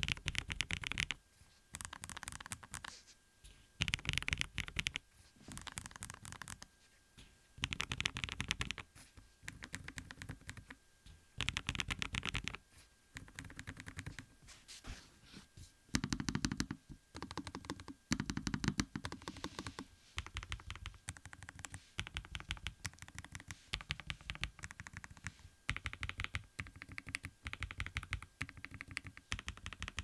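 Typing on Lofree Flow and Flow Lite low-profile mechanical keyboards: bursts of rapid keystroke clicks, each about a second long, about every two seconds, with short pauses between them.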